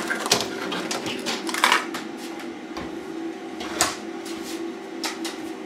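A few scattered light clicks and knocks from a circuit board and meter probe leads being handled on a workbench, over a steady low background hum.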